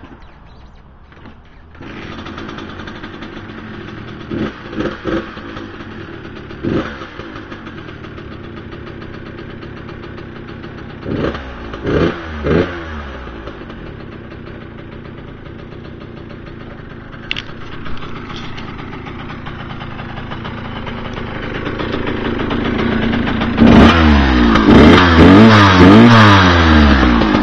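Kawasaki KX100 two-stroke single-cylinder dirt-bike engine kick-started, catching about two seconds in and idling with a few short throttle blips. Near the end it is revved repeatedly and much louder, close to the exhaust.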